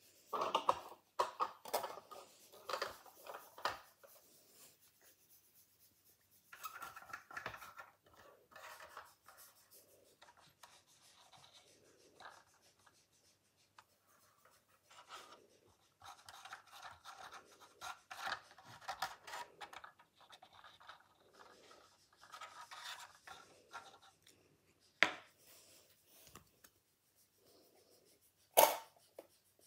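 Hands handling plastic parts on a scale model car: spells of rubbing and scratching as a clear plastic roof panel is fitted and glued in place, with two sharp clicks near the end.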